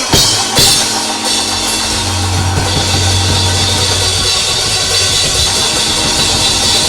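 Live church band playing: a drum kit with a cymbal crash at the start and a cymbal wash, over a held low bass note.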